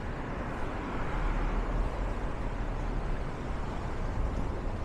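City street traffic noise with a steady low rumble. A vehicle passes about a second in, swelling louder for a couple of seconds.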